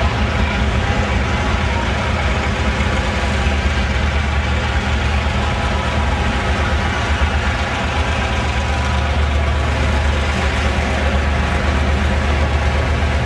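GM diesel locomotive engine running steadily, a deep even drone with no breaks.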